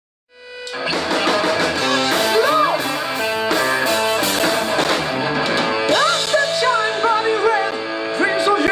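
A live rock band playing: electric guitar, bass guitar and drum kit, with a male lead singer coming in over the band. The music starts out of silence about a third of a second in, and the voice is heard briefly a couple of seconds in and then steadily from about six seconds in.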